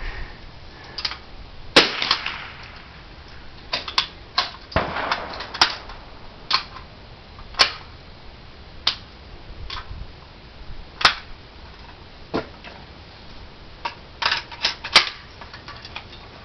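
Rifle shots fired one at a time at uneven intervals, about a dozen in all, some loud and sharp and others fainter, each with a short echo; a quick cluster comes near the end.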